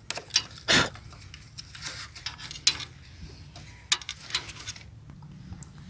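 Light clicks, ticks and rustling of hands working on a motorcycle's battery wiring, taking off the battery wire and handling a connector with a small blade. Irregular sharp clicks, the loudest a little under a second in and just before four seconds in.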